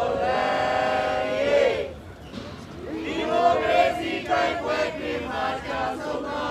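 A small group of voices singing together in unison: a phrase of held notes, a short break about two seconds in, then another sung phrase.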